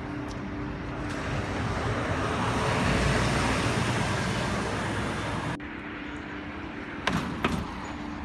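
Tour coach driving past close by, its engine and tyre noise swelling to a peak and then cutting off suddenly. Quieter street traffic follows, with two sharp clicks near the end.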